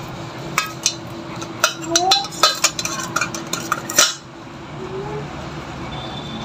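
Steel surgical instruments, forceps and scissors, clinking against a stainless steel bowl: a run of sharp metallic clicks over about three and a half seconds, ending in a louder clank about four seconds in.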